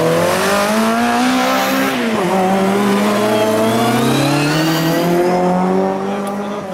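Rally car engine accelerating hard, its revs climbing, dipping sharply about two seconds in, then climbing again as the car comes closer.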